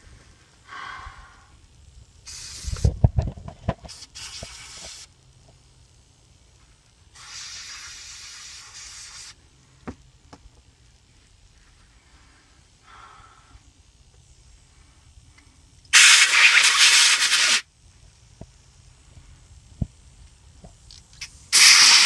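Aerosol brake cleaner sprayed in several separate hissing bursts of one to two seconds, the loudest about 16 seconds in, flushing crud and metal fragments out of a backhoe's transaxle brake housing. A few low knocks sound about three seconds in.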